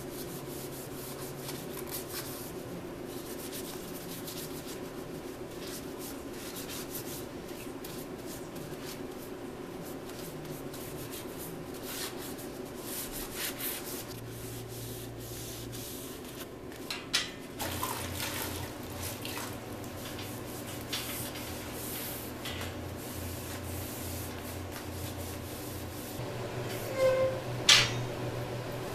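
A rag rubbed by hand along the steel tubing of a table frame, in scattered strokes over a steady low shop hum. A few sharp clicks, the loudest near the end.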